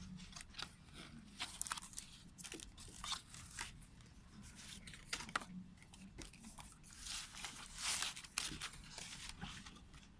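A CD and DVD package being handled by hand: irregular rustling and crinkling of paper and plastic, with short clicks and taps.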